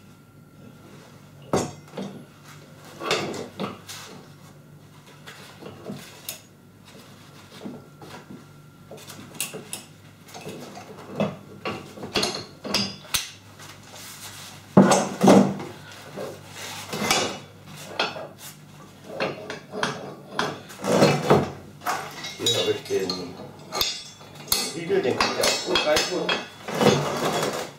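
Irregular metal-on-metal clanks and clinks as a steel tractor top link and its pin are shifted about inside a welded steel bracket. The knocks are few at first and come thicker and louder in the second half.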